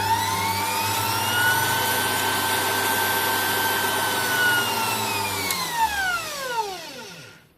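An 800 W variable-speed bench grinder's motor whining as it speeds up over the first second or so and holds a high speed. About five and a half seconds in it is switched off, and the whine falls steadily in pitch as it coasts down to a stop.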